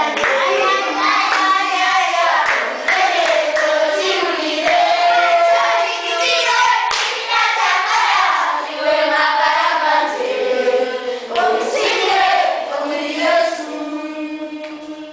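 A group of children singing together in chorus, with scattered hand claps; the singing dies down near the end.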